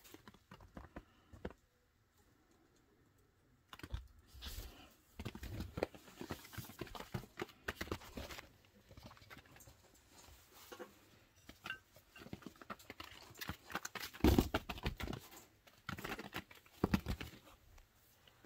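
Baby chinchillas scampering on a fabric-covered floor: light, irregular pattering and scrabbling of small feet, mixed with soft rustles as they move around a hand and leg. The taps come in uneven flurries, thickest about two-thirds of the way through.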